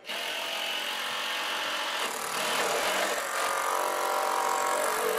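Cordless drill running continuously for about five seconds, boring into wood as for a pilot hole; its motor pitch shifts slightly about two seconds in.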